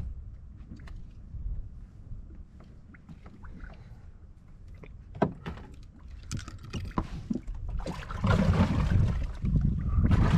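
Small knocks and clicks of handling gear in a fishing boat over a steady low rumble, then a loud rushing noise about eight seconds in.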